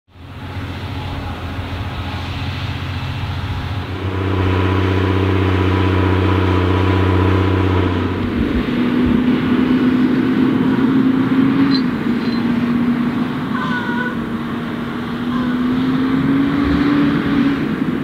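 The six-cylinder diesel engines of a Fendt 1050 Vario and a Fendt 939 Vario running under heavy load as the two tractors pull a deep plough in tandem. A steady engine drone whose pitch changes about eight seconds in, then wavers and rises a little near the end.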